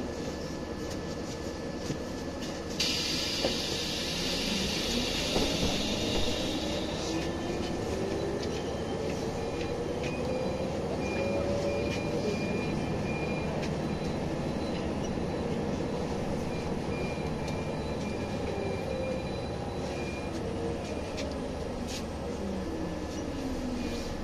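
Scania OmniLink city bus heard from inside the cabin, pulling away from a stop: a hiss of released air from its pneumatics about three seconds in, lasting about four seconds, then the engine and transmission rising in pitch as the bus accelerates. The pitch rises and drops again several times as it gathers speed.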